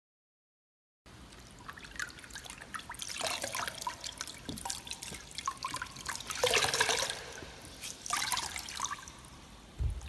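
A wet cloth rag being wrung out by hand: squelching, crackling cloth with water trickling and dripping. It swells in several squeezes, the strongest about two thirds of the way through, and ends with a short low thump before cutting off.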